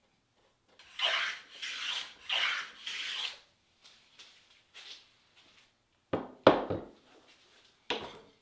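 Four quick strokes of a hand plane shaving walnut as bevels are cut on divider pieces. Later come a few sharp wooden knocks, and one more just before the end.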